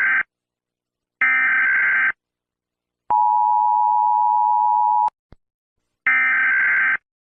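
Emergency Alert System signal: short, buzzy digital header bursts, then a steady two-tone attention signal held for about two seconds, then another header burst. A faint click comes just after the steady tone.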